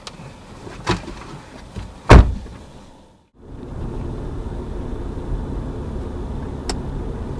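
Inside a moving car: a couple of light knocks and one heavy thump about two seconds in. After a short break, the steady hum of road noise from the car driving.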